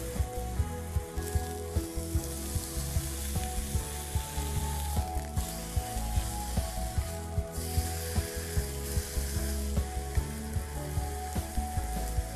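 Thin slices of chicken breast sizzling steadily in a hot, dry nonstick frying pan, seared at high heat without oil, with frequent short clicks throughout. Background music plays underneath.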